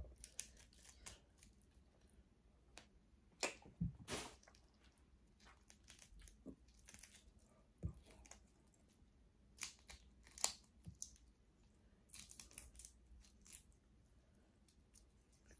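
Faint, irregular cracks, snaps and crinkles of crab and seafood shells being broken and picked apart by hand, about a dozen scattered sharp clicks.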